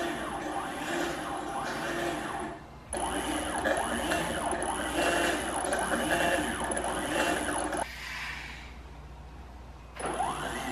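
Stepper motors driving a DIY CNC plasma table's gantry along a rack and pinion, whining as they jog the axis. The pitch rises and falls as each move speeds up and slows down. There are three runs: one of about three seconds, a longer one of about five, and a short one near the end.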